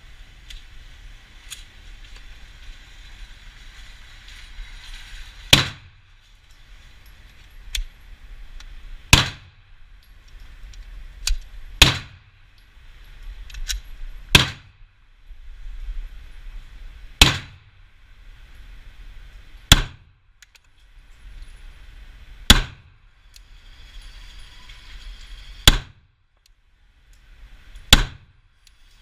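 Glock 17 9mm pistol fired in slow, deliberate single shots: about nine loud shots, two to three seconds apart, with a few fainter sharp reports in between.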